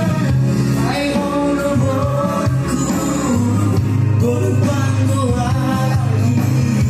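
A man singing a Batak-language ballad over a steady instrumental backing track.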